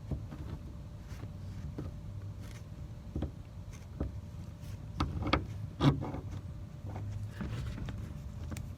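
Putty knife scraping and pressing headliner fabric into place, with scattered short clicks and scrapes, the sharpest a little past the middle, over a low steady hum.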